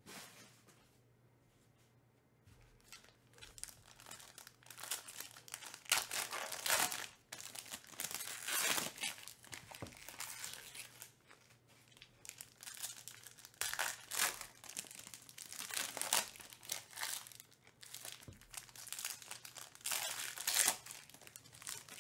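Foil trading-card pack wrappers crinkling and tearing as packs are torn open by hand, in repeated rustles every second or two after a quiet first couple of seconds.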